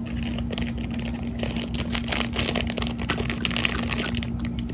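Close-up crackling and rustling of hands handling a foam squishy toy, an irregular patter of small clicks, over a steady low electrical hum.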